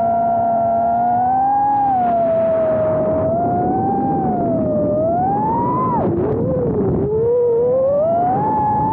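Brushless motors and propellers of a 4-inch freestyle FPV quadcopter whining in flight, the pitch rising and falling with the throttle. About six seconds in the pitch drops sharply as the throttle is cut, then climbs back up.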